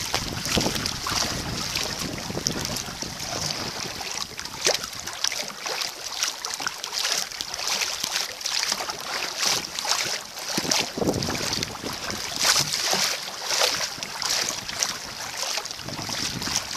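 Blizzard wind gusting against the microphone over water splashing and lapping around a kayak, with many short sharp splashes throughout.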